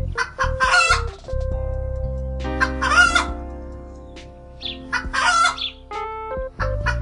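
Chickens calling: three loud calls about two seconds apart, over background music with held notes.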